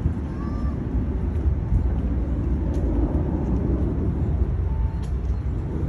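Wind buffeting the microphone outdoors, a low, fluttering rumble that covers the quieter open-air background.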